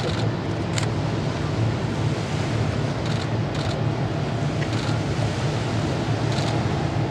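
ShinMaywa US-2 flying boat's four turboprop engines running at low power as it taxis on the water, a steady low drone, with wind noise on the microphone.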